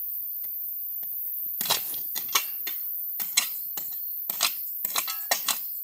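Small metal spade digging into stony gravel soil: a run of irregular scrapes and sharp clinks of metal on stone, beginning about a second and a half in. Crickets chirp steadily throughout.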